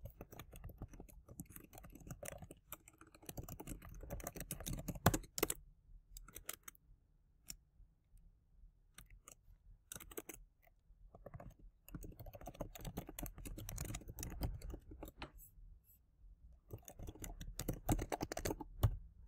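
Computer keyboard typing in several bursts of keystrokes with short pauses between them.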